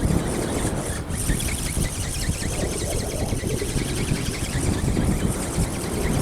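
Strong wind buffeting the microphone, a steady gusty rumble, with a faint high hiss above it.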